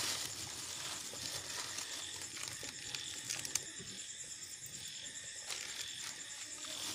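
Thin plastic packets crinkling and rustling as spices are shaken out of them into a small steel bowl, with a few sharper crackles near the middle. Behind it, a steady high chirring of crickets.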